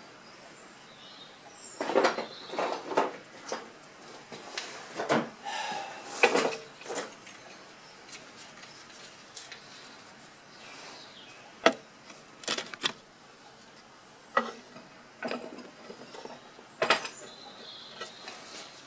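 Metal clinks and knocks of a socket on an extension bar being handled and fitted to a David Brown 996 tractor's hydraulic valve chest, coming in several short clusters with quiet gaps between.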